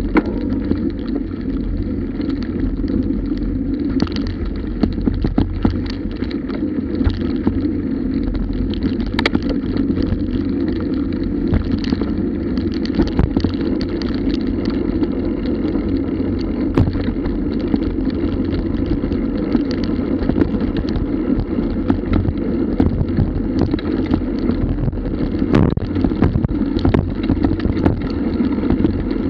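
Bicycle ridden fast over a rough dirt trail, heard from a bike-mounted camera: a steady rumble of tyres and wind, with frequent sharp rattles and knocks over the bumps.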